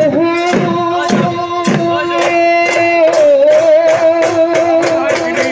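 Bihu dance music: dhol drums beaten in a quick rhythm under one long held note that wavers briefly midway through.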